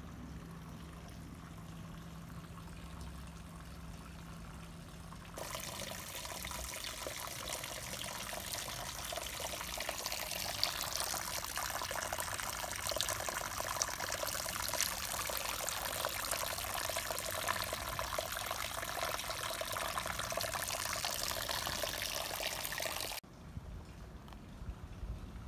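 Water trickling and splashing from the wooden rim of a stone water basin onto a hand and the stone below, a steady spattering trickle. It starts suddenly about five seconds in and cuts off sharply near the end.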